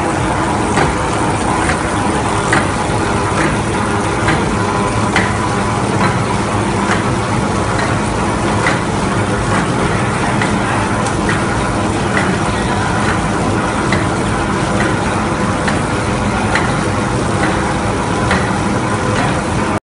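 Paper embossing (graining) machine running with brown paper feeding through its rollers: a steady mechanical drone with a light, regular tick about once a second.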